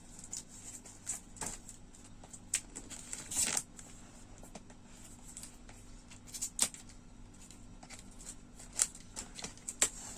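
A product box being handled and pried open by hand: irregular clicks, scrapes and short rustles of the box and its packaging, with one longer rustle a little past three seconds in.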